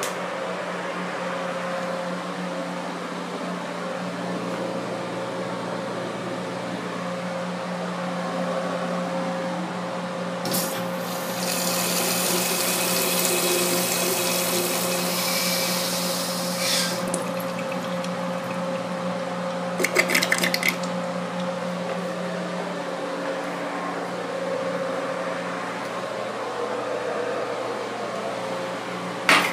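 A 1969–1983 American Standard Albrook urinal flushing: water rushes and hisses into the bowl for about six seconds, then cuts off abruptly. It is a super weak flush. A steady low hum runs underneath, a brief rattle of clicks comes a few seconds after the flush, and a sharp click comes near the end.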